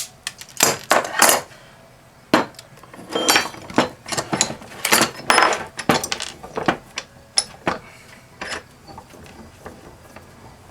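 Metal hand tools clinking and knocking against a small electric pump motor's parts as the plastic centre piece is worked out of it: quick irregular sharp clicks and taps, thinning out after about six seconds.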